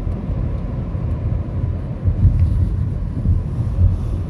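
Steady low rumble of a car driving, the engine and road noise heard from inside the cabin.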